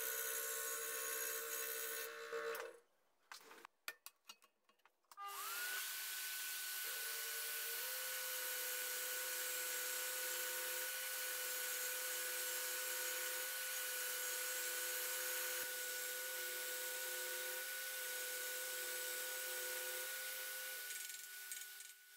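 Scroll saw running, its blade cutting thin wood. After a short break with a few clicks, a vacuum starts with a rising whine about five seconds in and runs steadily beside the saw for dust extraction, until both stop near the end.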